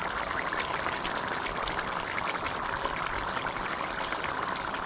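Pot of curry conch boiling hard: a steady, dense bubbling with many small pops.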